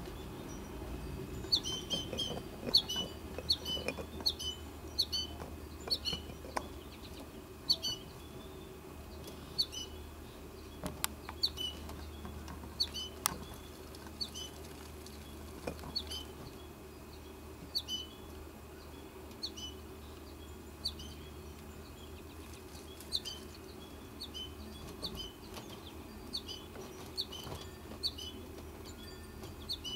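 Goldfinch fledgling calling: a long string of short, high chirps, each a quick falling note, repeated about once or twice a second, over a low steady hum.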